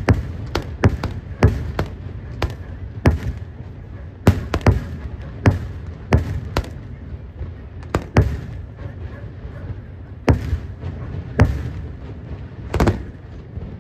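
Aerial fireworks shells bursting one after another in a sharp, irregular string of bangs, with a low rumble between them. The bangs come quickly for the first half and then spread out to a few single bursts a second or more apart.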